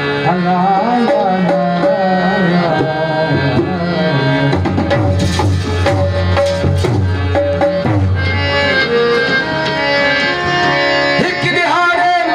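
Harmonium playing a sustained melody over hand-drum beats from a dholak, in a Sindhi Sufi devotional song. A deep, heavy drum pattern comes in a few seconds in and drops away again after about eight seconds.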